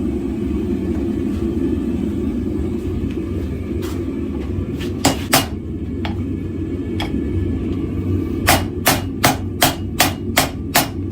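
Hammer striking a hot forge-weld billet on the anvil, the first welding pass of a zero-atmosphere forge weld, struck lightly to set the weld. A few scattered blows, then from about two-thirds of the way in a quick even run of about eight blows, close to three a second. A steady low roar runs underneath.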